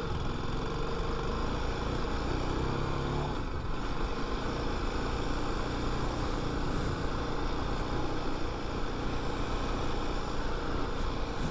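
A 310 motorcycle's single-cylinder engine running while it is ridden over a rough dirt road. The revs rise briefly a few seconds in, then drop off.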